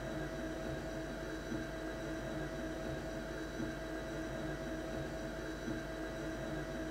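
Elektrobim SD18 rodless linear actuator's 24 V DC motor running steadily with an even whine, driving the TV-lift frame through its travel.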